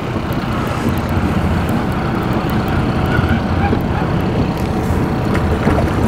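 Fishing boat's engine running steadily as a low, even rumble.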